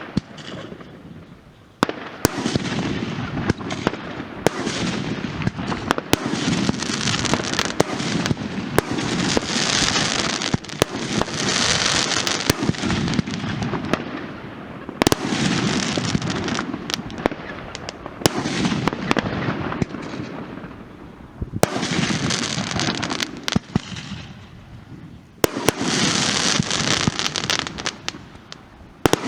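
Funke consumer fireworks going off: sharp bangs scattered over a dense crackling hiss that swells and dies away in several waves, with dips about a second in, near the middle and twice in the last third.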